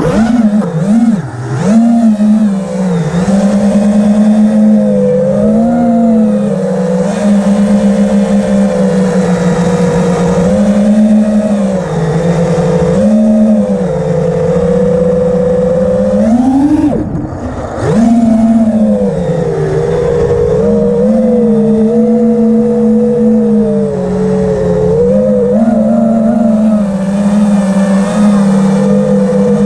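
Small motor running at high revs, its pitch wandering up and down with the throttle. About seventeen seconds in it drops away sharply, then revs straight back up.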